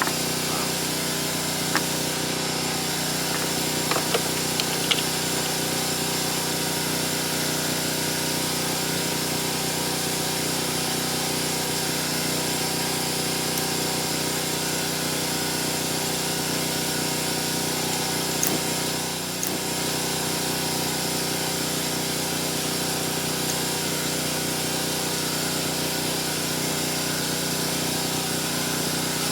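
A small motor running with a steady, unchanging hum and hiss, with a few light clicks in the first seconds.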